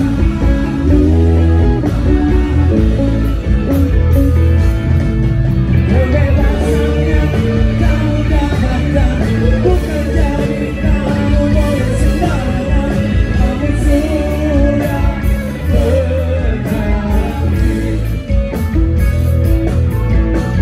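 Live rock band playing a song with singing: bass guitar, electric guitars and drums, loud and continuous.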